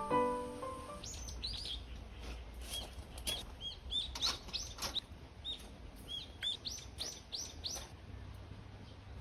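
A bird calling: a quick run of short, high chirps, each sweeping downward, repeated for about seven seconds. A piano tune stops about a second in.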